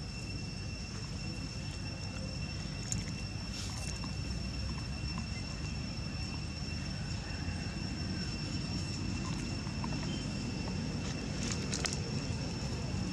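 Outdoor background: a steady low rumble with a constant high-pitched whine and a few faint clicks.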